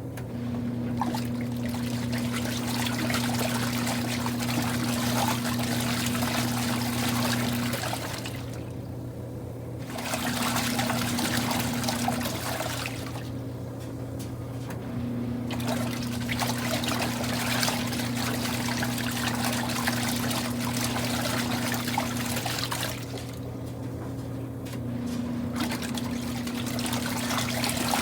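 Kuppet portable twin-tub washing machine running its wash cycle: the motor hums as the agitator churns and sloshes the water, stopping for about two seconds three times as the agitator pauses and reverses. A steady low hum runs underneath.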